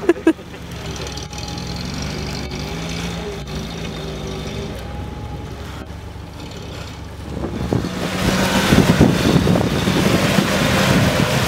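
UAZ off-roader's engine running steadily at low revs, then louder from about eight seconds in as the vehicle drives on through the muddy water of a deep rut, with mud and water churning under the wheels.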